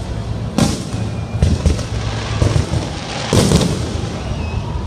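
Aerial fireworks display: shells bursting one after another with sharp bangs, a loud cluster of them about three seconds in.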